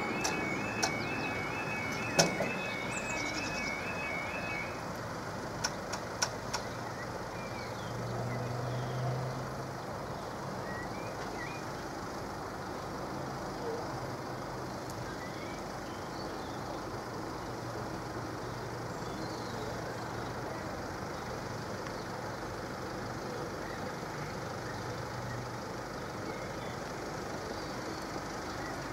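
Level-crossing warning alarm sounding its repeating warbling tone as the barriers lower, cutting off about five seconds in. A few sharp knocks, the loudest about two seconds in and four close together soon after the alarm stops, then a steady low background hum.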